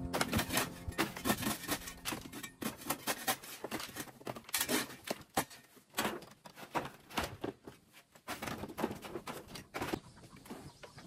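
Long-handled metal shovel scraping and knocking on the rat pens' slatted and brick tops in quick, irregular strokes, clearing off dirt. The strokes die down near the end.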